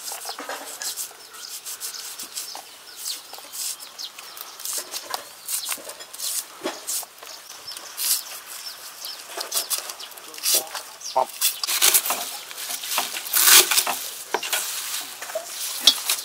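Irregular crisp rustling and snapping as fresh lemongrass stalks are sliced with a large knife and herbs are dropped into a steel bowl of river snails, louder toward the end.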